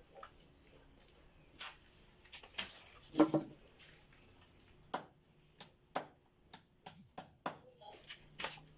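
Irregular sharp knocks and clicks from hand tools at masonry work. The loudest cluster comes a little over three seconds in, followed by a string of separate knocks about every half second.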